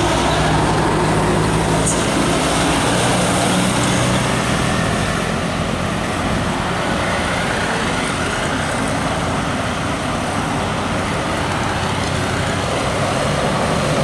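Bus and truck engines running with road traffic noise as the vehicles pass; a steady engine hum during the first few seconds gives way to an even traffic noise.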